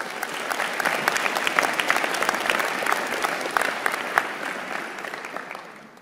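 An audience applauding, the clapping coming in at once, holding steady, and fading away over the last couple of seconds.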